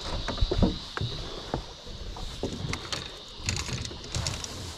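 Light knocks and clicks of fishing rods and gear being handled on a fiberglass boat deck, scattered irregularly, over a low rumble.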